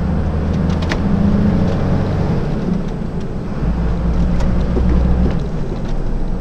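Delivery truck's diesel engine running under way, heard inside the cab, with road noise and a few short rattles about a second in. The engine note shifts in the middle as the truck pulls along.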